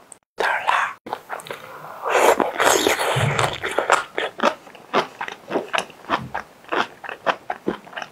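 Close-miked eating of luosifen (river snail rice noodles): a longer noisy stretch of slurping about two seconds in, then steady chewing with many small wet clicks and crunches.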